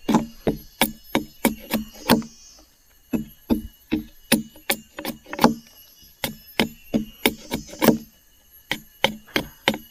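Machete blade striking and shaving a strip of wood in short, sharp chops, about three a second, with brief pauses about two and a half seconds in and again near the eight-second mark.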